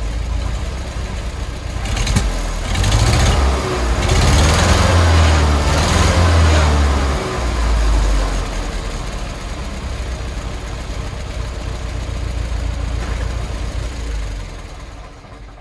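Robur truck's air-cooled petrol engine running: revved up for several seconds about two seconds in, then settling back to a steady idle, fading near the end.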